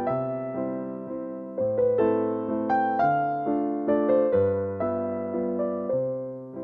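Background music: gentle piano or electric piano playing notes and chords that strike and fade over a slowly changing bass line.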